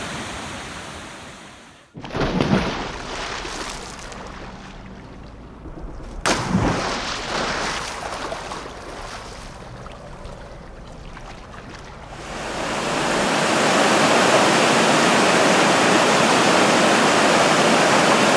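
Stairway Falls, a cascading mountain waterfall, rushing. The first part is quieter, broken by two sudden bumps and cuts. About two-thirds of the way in the rush becomes loud and steady.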